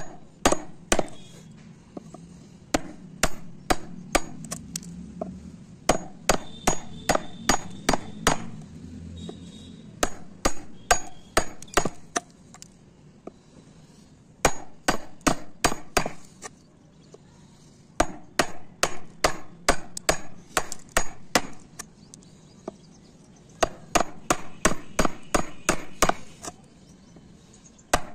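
Wood chisel being struck again and again as it cuts a V-shaped notch into a wooden board, chipping the wood out. Sharp knocks come about two to three a second in runs, with short pauses between the runs.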